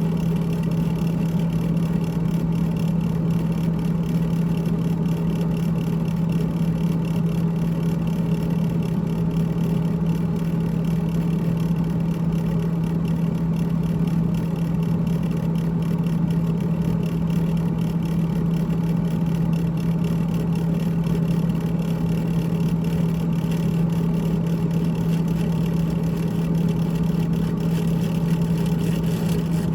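GE GTH18XCTZRBB refrigerator's evaporator fan running with a steady low hum and a continuous rattling buzz, unchanging throughout: the rattle is a sign of trouble at the evaporator fan.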